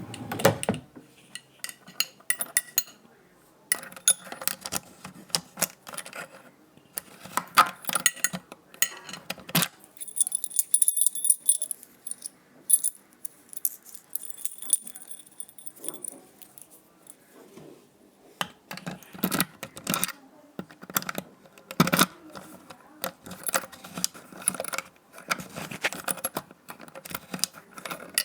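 A bunch of metal keys jangling and clicking in irregular bursts with short pauses. A thin high tone runs for several seconds in the middle.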